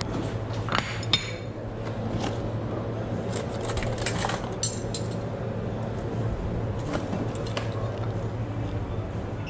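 Crockery and cutlery clinking as a barista works behind a café counter: a few sharp clinks, two close together about a second in, over a steady low hum.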